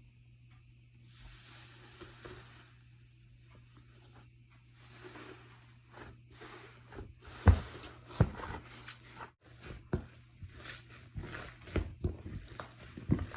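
Iceberg slime being pressed and squished with the fingers: the dried crust crackles softly at first, then gives way to sharp pops and squelchy clicks that come faster near the end.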